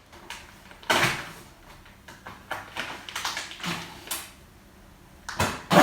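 Bursts of rustling and scraping as the carpet's packaging is handled and pulled at while it is being forced open, the loudest about a second in and again near the end.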